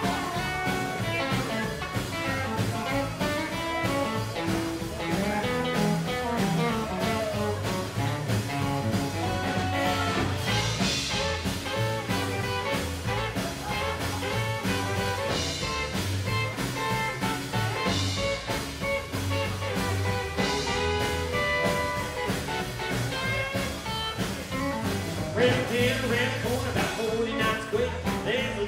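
Live rockabilly band playing an instrumental stretch on electric guitar, acoustic guitar, upright double bass and drum kit, with a steady beat. The lead vocal comes back in near the end.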